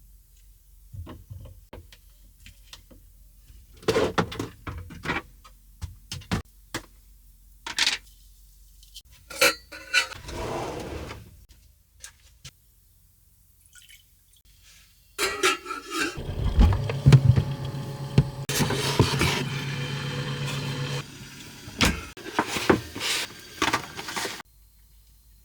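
Kitchen clatter in a small room: pots and dishes knocked and set down. About fifteen seconds in, a steady hum with water running lasts about six seconds, as when a pot or container is filled.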